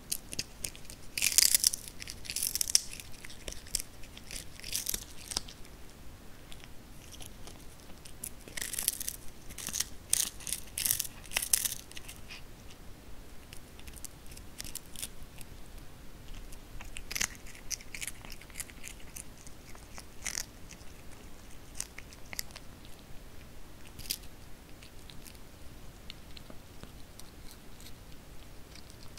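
A kitten biting and chewing a whole capelin held out by hand: crisp crunching in bursts, loudest near the start and again around ten seconds in, with a few scattered crunches later.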